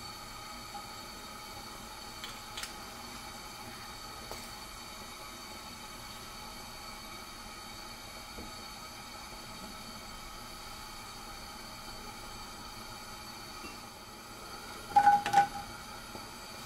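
Steady faint mechanical hum with a few soft ticks. About fifteen seconds in, a brief loud clatter with a metallic ring as sliced mushrooms drop into a stainless-steel frying pan.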